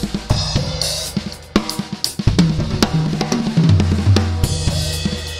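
Drum kit played: sharp snare and bass drum hits with cymbal crashes, then a run around the toms whose pitches step lower from about two seconds in, followed by a cymbal wash near the end.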